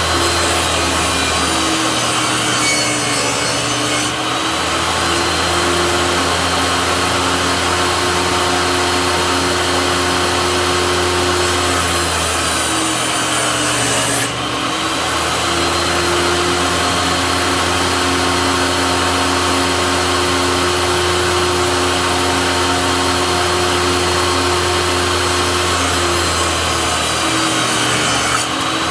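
Table saw running continuously and cutting cedar fence boards at a 45-degree bevel. The motor hum dips briefly in pitch a few times as the blade goes through the wood.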